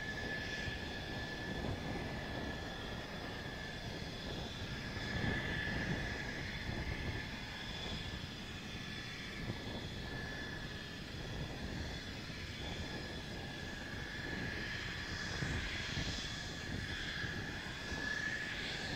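Mitsubishi F-2 fighter's single General Electric F110 turbofan running at low taxi power as the jet rolls slowly past: a steady high whine over a low rumble, swelling a little twice.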